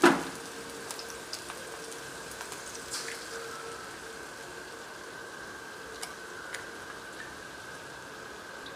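A sharp crack as an egg is broken on the iron wok, then the soft steady sizzle of eggs frying in the oil, with a few faint clicks as more eggs go in.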